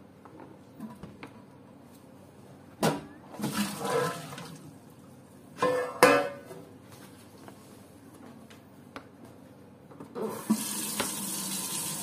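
A few clatters and clanks as a colander and metal tray are handled over a stainless steel sink, then about ten seconds in the cold tap is turned on and water runs steadily into the sink, ready for rinsing the blanched beans.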